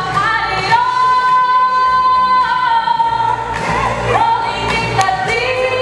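A woman singing a ballad into a microphone over instrumental accompaniment, holding long sustained notes with a slide up between them.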